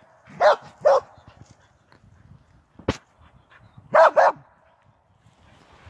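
Dog barking in short, sharp barks: a quick pair about half a second in and another pair about four seconds in, with a single sharp click between them.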